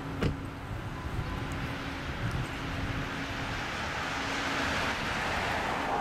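Road traffic: a passing vehicle's tyre and engine noise, swelling over the last couple of seconds, with a short sharp click about a quarter second in.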